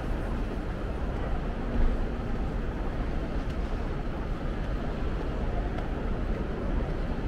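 Steady low rumble of city traffic and street noise, with a brief swell about two seconds in.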